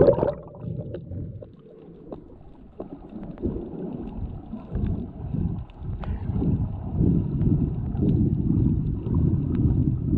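Muffled underwater noise of water moving around a submerged camera, an irregular low rumble that grows louder from about five seconds in. A brief louder rush of water at the very start.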